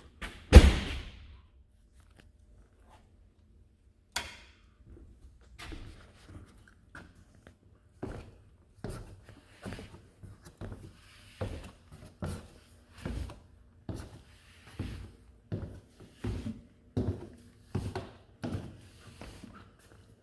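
A single heavy thunk about half a second in. Later comes a long run of evenly paced footsteps, about one or two a second, in the second half.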